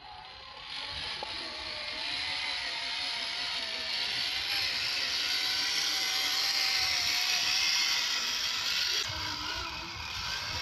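Electric motor and gearbox of a 1:10 scale RC rock crawler whirring as it drives, a steady whir with a faint wavering whine, starting about a second in and easing off near the end.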